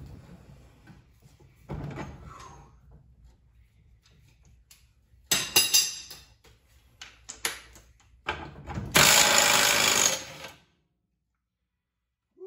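Cordless 300 ft-lb impact wrench hammering on a lower control arm cross-shaft nut. It goes in a few short bursts, then one longer burst of about two seconds that cuts off suddenly. The nut is slow to come off its long threaded shaft.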